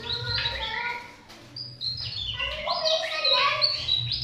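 Javan tesia singing a fast, varied song of short whistled notes that jump between high and low pitches, with a brief pause about a second in.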